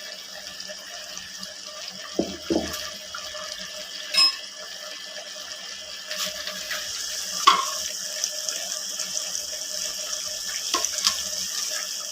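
A steady hiss from the cooking pot with a few metal clinks and knocks of utensils against it; the loudest come about four seconds in and about seven and a half seconds in.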